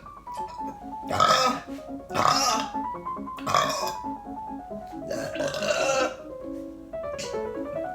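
Four loud burps from a woman in quick succession, the last one the longest, over light keyboard background music.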